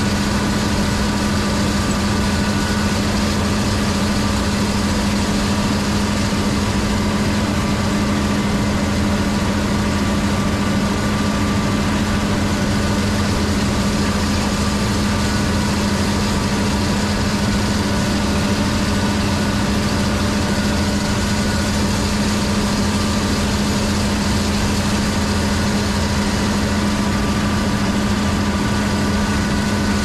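Combine harvester's diesel engine running steadily at working speed: a deep, even hum with fainter higher tones above it, with no change in speed.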